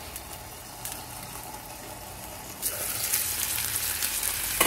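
Chicken pieces frying in butter in a frying pan: a steady sizzle that gets suddenly louder about two and a half seconds in as the lid comes off, with spitting crackles after, and a sharp click near the end.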